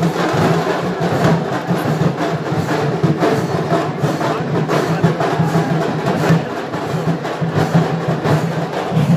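Loud live drumming and percussion, many quick strikes over a strong low drum tone.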